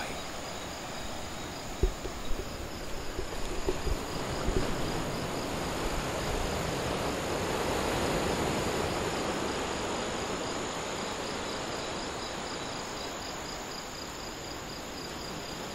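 A steady, high-pitched chorus of night insects over the broad wash of Atlantic surf, the surf swelling and easing about eight seconds in. A few low thumps come in the first five seconds.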